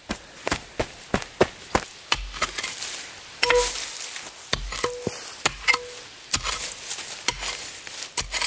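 Shovel blade chopping and prying into stony soil around a buried rock: a quick run of sharp strikes and scrapes, a few ringing briefly where metal hits stone.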